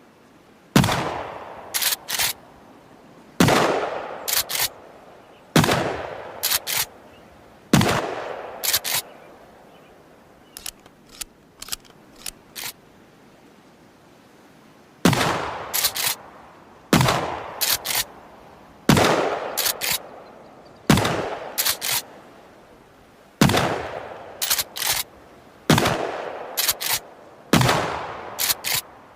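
Remington 870 TAC-14 pump-action shotgun firing about eleven shots, roughly two seconds apart, each shot ringing out and followed by two quick clicks as the pump is racked back and forward. Midway there is a run of lighter clicks and a short pause before the firing resumes.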